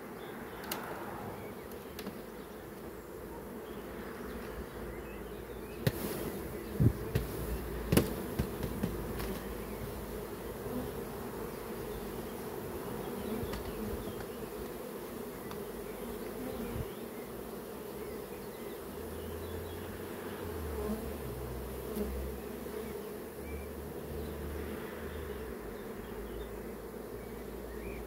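Honeybees buzzing steadily around an open hive: the hum of a whole colony. A few sharp knocks come about six to eight seconds in, from the wooden hive frames being handled.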